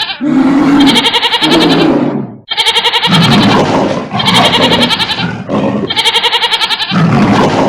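Goats bleating over and over in a stampede sound effect, loud calls of about a second each with a fast warble, repeating in a looped pattern with a short break a little over two seconds in.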